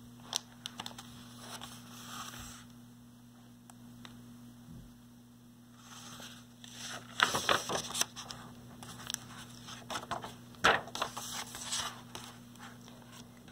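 Soft paper rustling and light clicks of a book's pages being handled and turned, in two bouts: one at the start and a busier one from about seven seconds in. A faint steady hum runs underneath.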